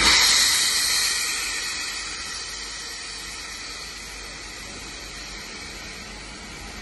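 Steam locomotive venting steam: a sudden loud hiss that fades over two or three seconds into a steady, quieter hiss.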